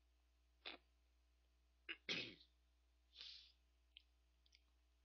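A few short, quiet breath and mouth sounds close to a microphone: brief puffs, the strongest about two seconds in, and a small click near the end.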